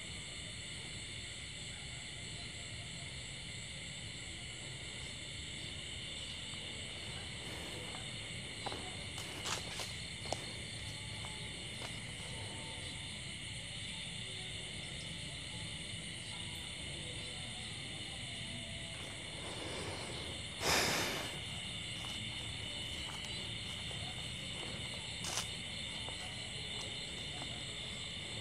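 Steady nighttime chorus of crickets and other insects, a continuous high chirring in several pitch bands. A few faint clicks sound near the middle, and there is one short, louder noise about three quarters of the way through.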